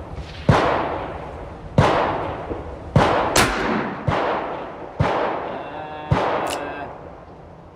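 Gunshots at a shooting range, among them a Smith & Wesson Model 29 .44 Magnum revolver firing full metal jacket reloads. There are about six sharp reports, roughly a second apart, each with a short echoing tail.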